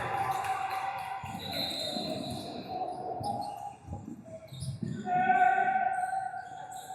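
A ball bouncing on a gym floor during a game, with players' sounds around it and a loud held call or squeal about five seconds in.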